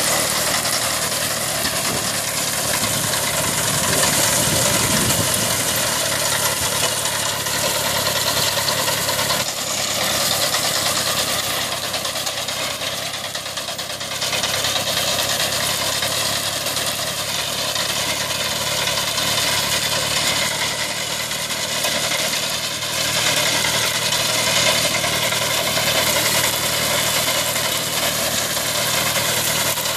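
Kubota 30 HP water-cooled diesel engine of a YAPEL ÇDG-370 reaper-binder running steadily under harvesting load, with slight swells in loudness.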